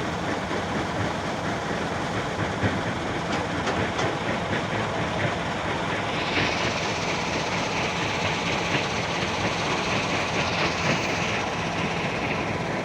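Heavy diesel construction machinery running steadily, with scattered metallic clatter, and a hiss that comes in about six seconds in and fades near the end.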